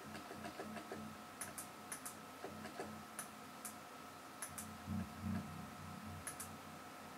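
Faint computer mouse clicks, a few at a time, over a thin steady whine. A few soft low tones come in, loudest about five seconds in.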